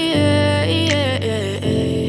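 Background music from a slow pop song: a melody gliding between long held notes over sustained chords, between sung lines.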